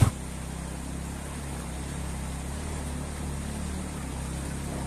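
Motor scooter's small engine running steadily as it is ridden through a shallow river.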